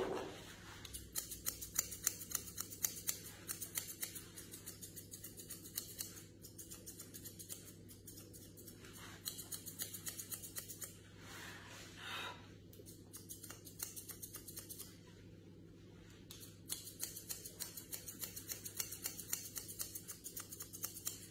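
Grooming scissors snipping quickly and quietly through a dog's facial hair, in runs of rapid cuts broken by short pauses.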